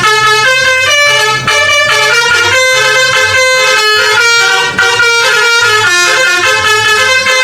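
Indonesian 'telolet' bus horn, a multi-tone air horn, playing a tune of held notes that change every half second or so.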